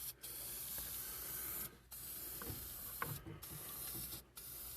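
Tape being pulled off the roll in long strips for sealing a furnace duct joint against air leaks: a rasping tear that runs in stretches of about a second and a half, broken three or four times by short gaps.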